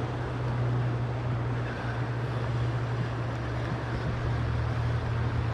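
Rushing water of a fast, shallow rocky creek current, a steady wash with a constant low rumble of wind buffeting the microphone.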